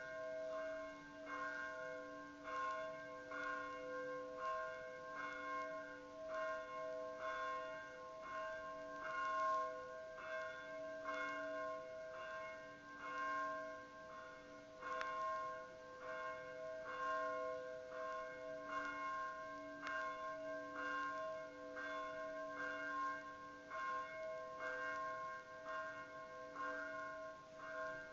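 Monastery church bells ringing. Regular strikes come a little faster than one a second, over a steady ringing hum of several pitches that never dies away.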